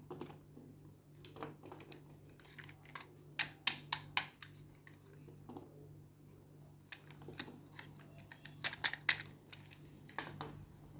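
Hands unboxing a toy: scattered sharp clicks and taps of plastic and packaging being handled, in quick clusters about three and a half seconds in and again near nine seconds, over a faint steady hum.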